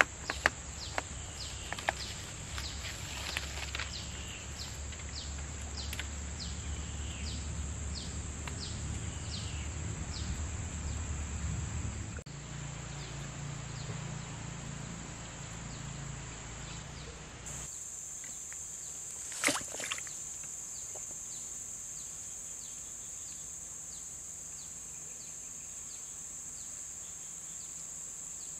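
Steady high-pitched insect drone, with a short falling chirp repeated every second or so. A low rumble underneath drops away abruptly partway through, and there is a single sharp tick about two-thirds in.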